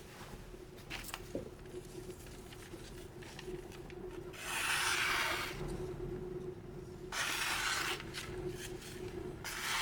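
Aogami Blue #2 steel santoku slicing through thin magazine paper: long papery swishes, one about four seconds in, another about seven seconds in, and a third near the end. The knife cuts easily but is not yet at hair-whittling sharpness.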